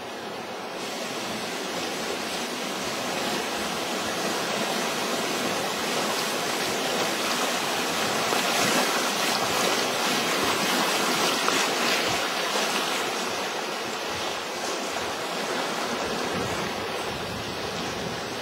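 Rushing water of a fast mountain river with rapids, a steady hiss and roil heard from a raft in the current, growing louder towards the middle.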